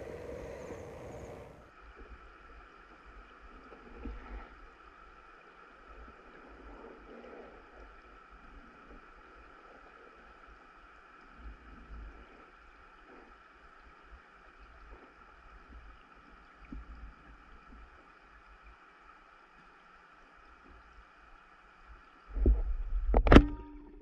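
Underwater sound picked up through a diving camera: a steady high whine with faint scattered low knocks and water movement. Near the end come a loud low rush and a single sharp snap.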